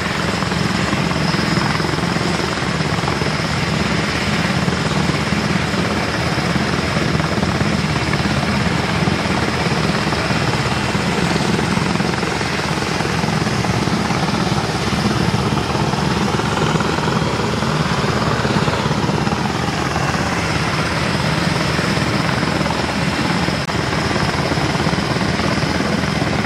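Several turbine helicopters running close by, rotors turning for takeoff: a steady, dense rotor and engine noise with a thin high turbine whine on top.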